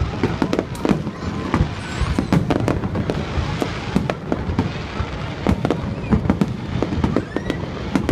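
High-altitude aerial firework shells bursting in quick succession: a continuous run of sharp bangs and crackles, several a second.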